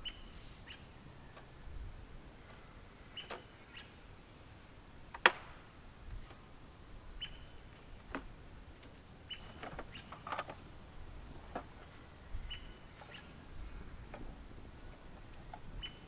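A folding camp table being opened out and stood up, with several knocks and one sharp click about five seconds in, the loudest sound. A bird gives short high call notes every few seconds.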